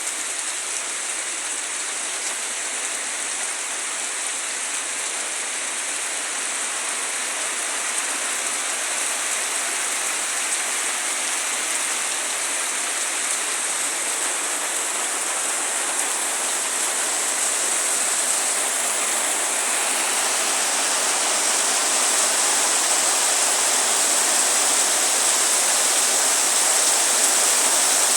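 Heavy rain falling steadily, an even hiss that slowly grows louder.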